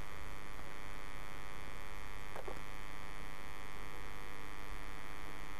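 Steady electrical mains hum with hiss in the recording, no speech. A faint click comes about two and a half seconds in.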